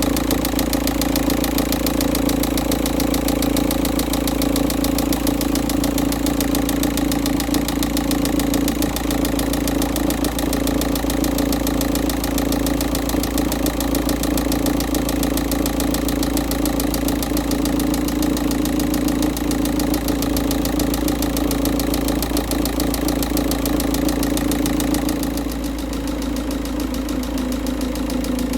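Volkswagen 1.9 TDI four-cylinder diesel engine idling with a strong, rapid knocking or banging from inside the engine, still soon after a cold start with thick cold oil. It gets slightly quieter for the last few seconds.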